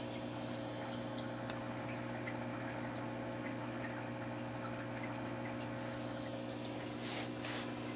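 Aquarium pump running with a steady hum, over faint trickling and bubbling of water; two brief hisses come near the end.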